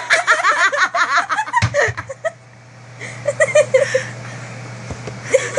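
A person giggling in a quick, high-pitched run for about two seconds, then laughing again more briefly about three seconds in, over a steady low hum.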